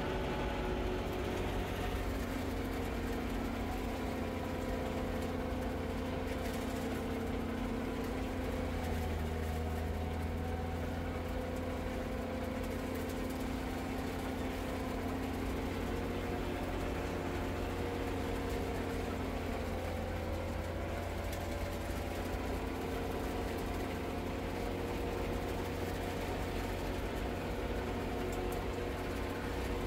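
Diesel engine of an Aebi slope tractor running steadily, heard from inside its cab: a steady low hum with several held tones, dipping briefly in pitch twice.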